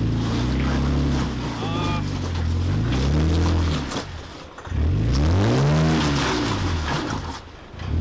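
Toyota Tacoma engine revving up and down in several bursts, the biggest rise and fall a little past halfway, as the truck strains to climb a rock ledge with its rear bumper hung up on a rock.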